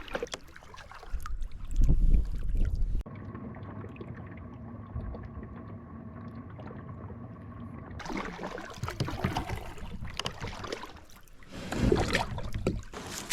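Kayak moving across a lake: water sounds around the hull and paddle strokes, with wind buffeting the microphone in the first few seconds. A steady hum with a muffled sound runs from about three to eight seconds in, then paddling noise returns.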